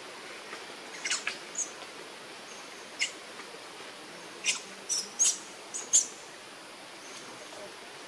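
A scatter of short, high-pitched animal chirps: three quick ones about a second in, one near three seconds, then a cluster of five between four and a half and six seconds. A steady hiss of outdoor background noise runs underneath.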